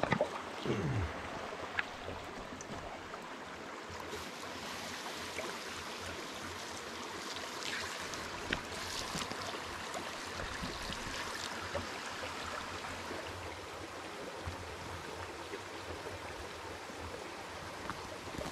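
Small mountain creek running steadily over rocks, a constant rush of water. A few short knocks come in the first second or two.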